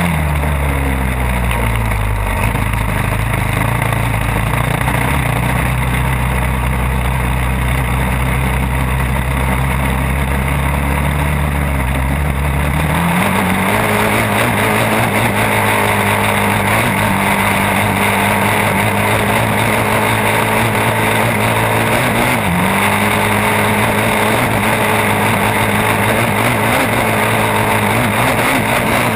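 Sport ATV engine heard from on board while riding, pulling at a steady pace. Its note falls right at the start and holds low, climbs about halfway through and holds higher, and dips briefly about three-quarters of the way in before picking up again.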